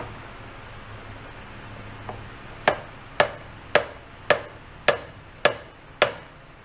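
Hammer tapping the butt of a screwdriver set against a plastic carburetor float bowl to knock the stuck bowl loose. About seven sharp taps, roughly two a second, starting about a third of the way in.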